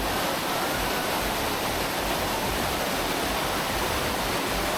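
Water rushing down a cascading waterfall: a steady, even hiss with no breaks.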